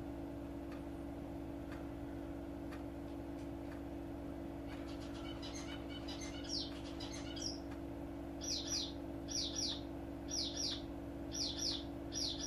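A small bird chirping: short down-sweeping notes, often in quick pairs, repeating about once a second from about halfway through. A steady low hum runs underneath, with faint regular ticks, like a clock, in the first half.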